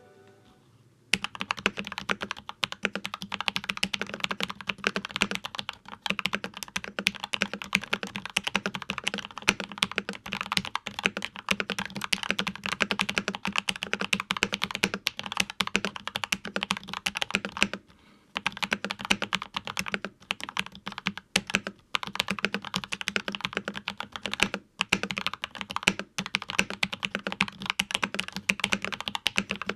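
Typing on a GamaKay LK67 mechanical keyboard whose Hippo linear switches carry very heavy 150 g springs. It is a dense clatter of keystrokes, each key jammed down hard to bottom out against the resistance. The typing starts about a second in and pauses briefly past the middle.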